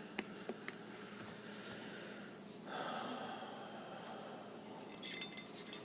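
A short, sharp breath through the nose about three seconds in, with a few faint clicks of small pistol parts being handled in the first second.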